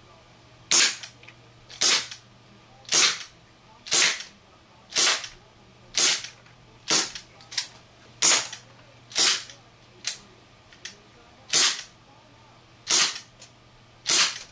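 HFC HG132 gas-powered airsoft revolver firing BBs on a propane charge: about a dozen sharp shots, roughly one a second, several followed shortly by a smaller tick.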